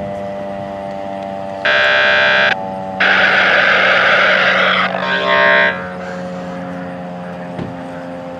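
A horn sounds in loud blasts: about a second long, then a longer, hissing blast of about two seconds, then a shorter one, starting and stopping abruptly. A steady humming tone runs underneath throughout.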